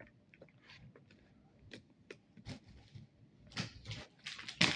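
Scattered light clicks, taps and rustles of small objects being handled, with a sharper click near the end.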